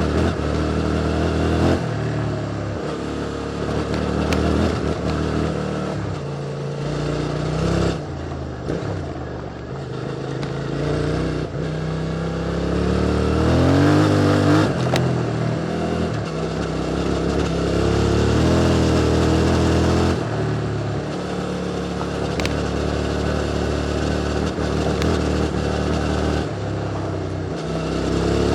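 QJ Motor SVT650X motorcycle engine through an Arrow Racetech slip-on exhaust, riding with the throttle opening and closing. The engine note rises and falls repeatedly, with a clear climb in revs about halfway through.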